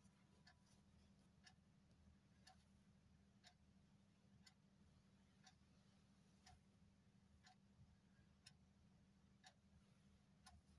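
Near silence with faint, even ticks about once a second over a low steady hum.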